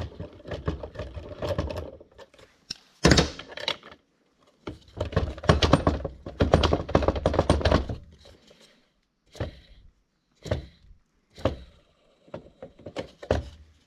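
Hand tools and small metal engine parts clanking and rattling as a small two-stroke leaf blower is taken apart. A run of knocks and clatters, one sharp knock about three seconds in, a longer dense clatter in the middle, then single clicks about a second apart near the end.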